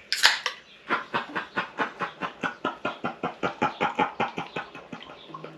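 A short sharp hiss, then a fast run of breathy, unvoiced snickering, about five puffs a second, fading toward the end.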